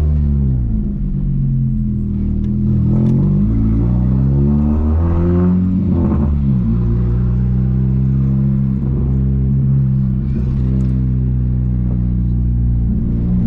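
VW Gol 1.0 8V four-cylinder engine through a loud HKS 4-inch sport muffler while driving. The revs fall, then climb twice, with gear changes about three and six seconds in, then hold steady at a cruise.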